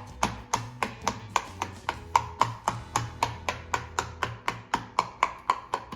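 Silicone pop-it fidget toy being popped bubble by bubble: a steady run of sharp pops, about four a second.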